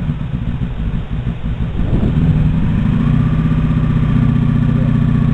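Motorcycle engine idling while the bike stands still, with a brief rise in revs about two seconds in before it settles back to a steady idle.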